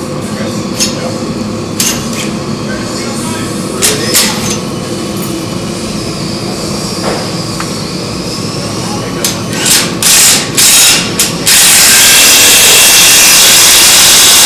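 Boatbuilding shop noise: a steady hum with a few sharp knocks, then several short loud hisses about nine seconds in. These run into a loud, steady hiss over the last three seconds.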